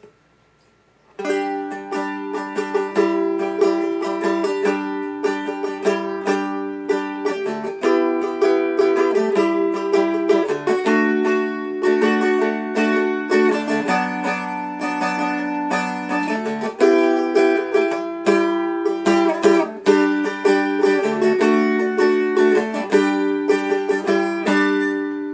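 Seagull Merlin M4 strummed in a steady rhythm, chord after chord, starting about a second in and dying away near the end.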